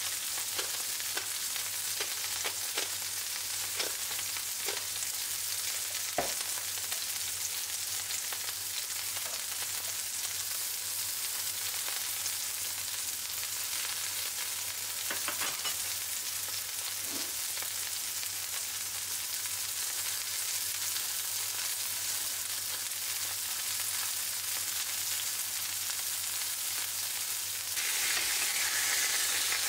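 Burger patties sizzling in hot oil in a frying pan: a steady hiss with scattered pops and crackles of spitting fat. Near the end a patty is flipped with a spatula and the sizzle jumps louder as its raw side meets the pan.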